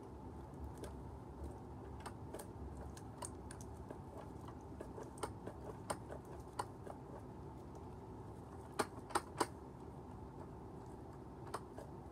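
Light clicks and taps from a hand handling a First Gear die-cast model garbage truck, with three sharper clicks in quick succession about nine seconds in and one more near the end.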